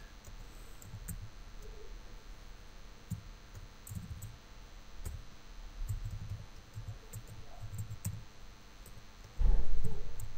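Computer keyboard typing: irregular light key clicks with soft low thumps as keys are struck. Near the end comes a louder low thud lasting about a second.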